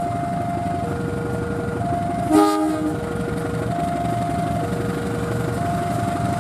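Level-crossing warning alarm sounding its two alternating tones, switching about once a second, over the low rumble of CC 201 diesel-electric locomotives pulling a container freight train. A short horn blast cuts in about two and a half seconds in.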